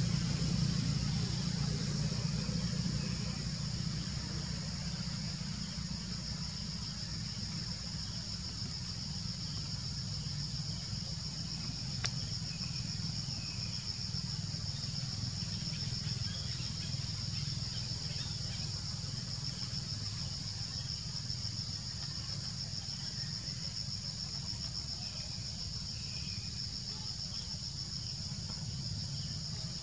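A steady, high-pitched insect chorus with a fine pulsing buzz, over a steady low rumble, with a single sharp click about twelve seconds in.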